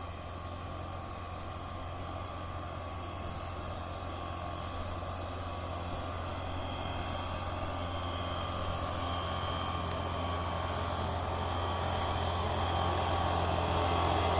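Engine-driven backpack dusters running steadily at high speed as they blow sulphur dust over chilli plants, growing steadily louder as they come closer.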